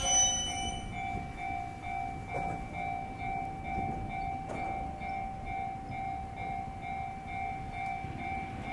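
Railway level crossing's warning bell ringing in an even, repeating ding, over the low rumble of a train on the tracks, with a couple of faint clicks.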